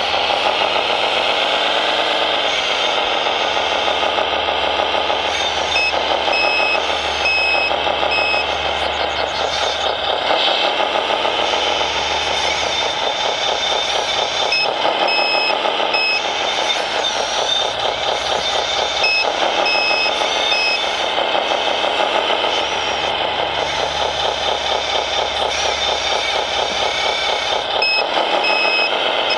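Simulated diesel engine sound from an RC truck or construction machine's sound module, its pitch rising and falling as it works, with a reversing beeper sounding in four short runs of beeps.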